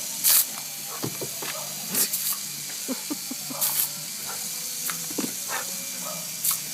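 Water spraying from a hose with a steady hiss, broken by short louder bursts every second or two as the spray is played on a dog.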